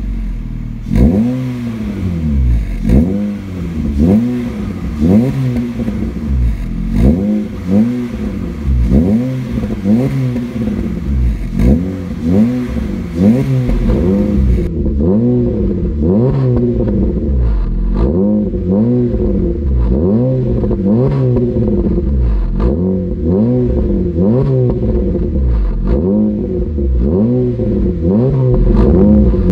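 Honda City four-cylinder petrol engine blipped repeatedly in Park through an aftermarket catback exhaust with triple tips. The short revs come about once a second, each rising and falling in pitch, and peak around 3,000 rpm.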